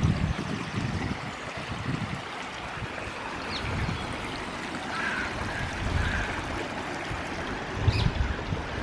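Steady rush of flowing water, with irregular low gusts of wind buffeting the microphone.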